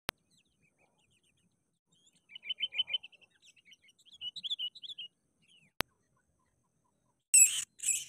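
Sooty-headed bulbuls calling: quick runs of bright chattering notes from about two seconds in to about five seconds in. A sharp click comes at the start and another about six seconds in, and a short, loud, harsh burst comes near the end.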